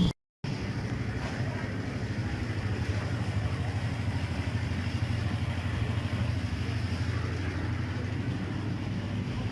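An engine running steadily at a low, even pitch, with a brief drop-out at the very start.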